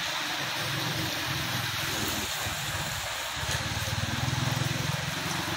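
Steady rain hiss, with a vehicle engine running low underneath, fading for about a second in the middle and then coming back.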